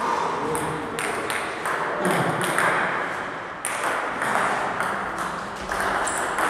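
Table tennis rally: the ball clicking sharply off the paddles and bouncing on the table in a quick, irregular run of ticks.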